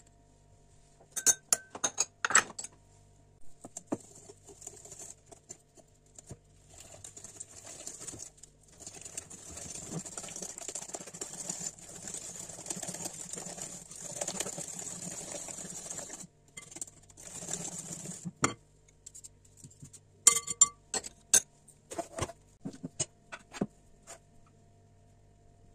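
A hand whisk beating batter in a glass bowl: a steady, fast scraping and clinking that lasts about ten seconds in the middle. Before and after it come a few sharp clinks and knocks of utensils against the glass.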